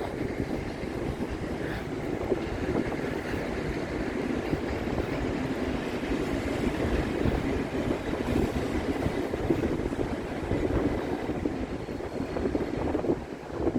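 A train running with a steady rumble, with wind buffeting the microphone. A faint high whine creeps in near the end.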